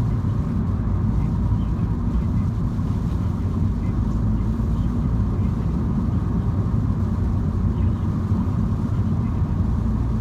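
MINI driving at a steady pace, heard from inside the cabin: a constant low rumble of engine and road noise.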